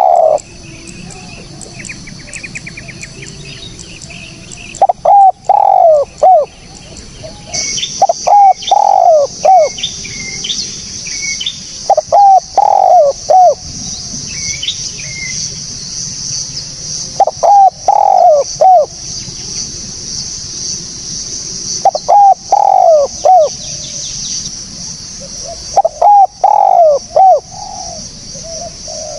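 Spotted dove (tekukur) giving its cooing call, a phrase of several quick notes repeated six times, about every four to five seconds. Smaller birds chirp at a higher pitch between the phrases, and a steady high hiss comes in about seven seconds in.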